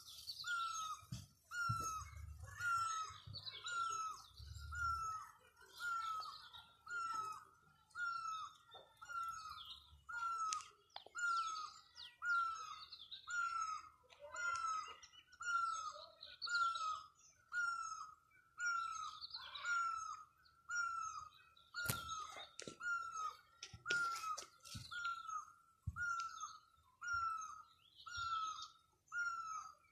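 Birds calling: one repeats a short falling note about three times every two seconds, while others chirp faintly and higher in the background.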